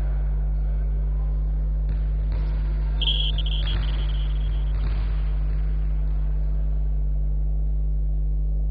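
Steady low hum over faint hall background noise, with one short high tone about three seconds in.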